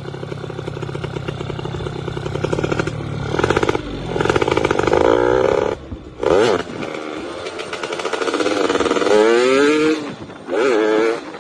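Yamaha F1ZR's two-stroke single-cylinder engine revving hard, its pitch climbing several times with sudden short drops in level between the climbs.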